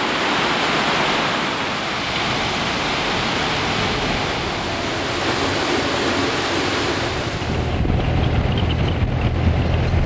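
Rushing water from a waterfall and a fast rocky stream makes a steady, even roar. About eight seconds in, it cuts to the low steady drone of a BMW boxer-twin motorcycle being ridden.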